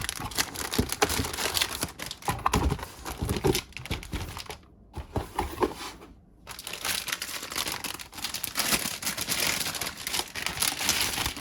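Packaging being handled: crinkling and rustling with scattered clicks and knocks, stopping twice for a moment near the middle.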